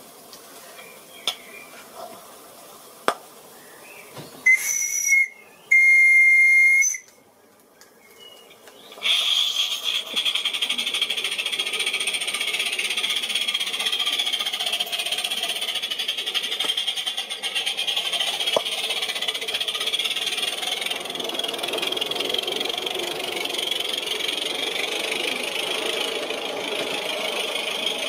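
Live-steam garden-railway locomotive, a modified Cheddar Models Iver: its steam whistle gives two short, steady blasts about four and a half and six seconds in, the second louder. From about nine seconds on there is a loud, steady hiss of escaping steam.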